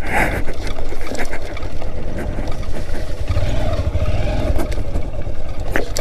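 Motorcycle engine running at low speed over a rough dirt track, under a heavy low rumble, with a few knocks from the bike jolting over ruts.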